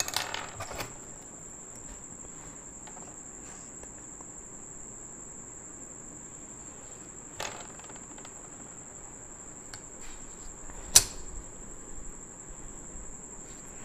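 Drawing instruments handled on a paper drawing sheet: a ruler is moved and set down in the first second, and there are a few taps and clicks as a compass is picked up, the sharpest about eleven seconds in. A steady high-pitched tone runs throughout.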